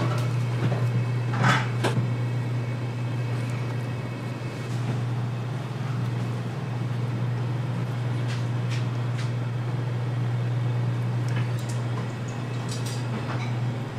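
A steady low hum of kitchen machinery, with a few light taps of a long knife slicing salmon against a plastic cutting board in the first two seconds and scattered light clicks later.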